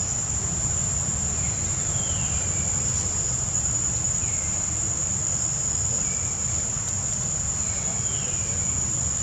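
Steady, high-pitched drone of insects in the forest, with short falling chirps every second or two over a low rumble.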